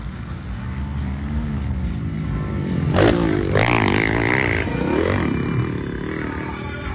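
Motocross bike engines revving on the track. One bike passes close and is loudest about three seconds in, its pitch swinging quickly up and down as the throttle is worked, then it fades off.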